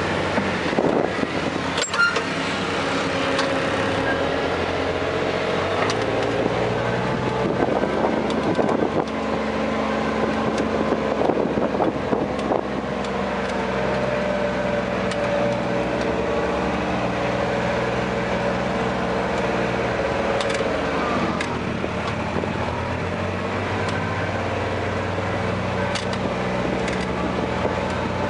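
Caterpillar 345CL excavator's diesel engine and hydraulics running steadily, heard from inside the cab. The engine pitch shifts as the machine works, with a few knocks and clanks in the first dozen seconds.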